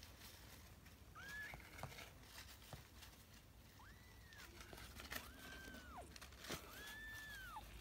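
Young kittens mewing faintly: four thin, high mews, each under a second and rising then falling in pitch, with a few soft rustles between them.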